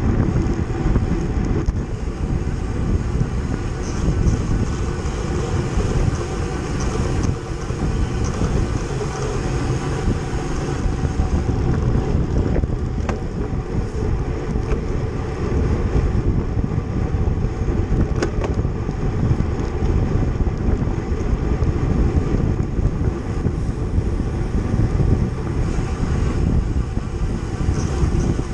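Heavy wind buffeting the microphone of a camera carried on a racing bicycle at speed, a steady rushing rumble with no let-up.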